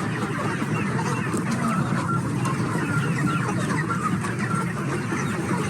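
A large flock of chickens clucking, many calls overlapping in a steady chatter.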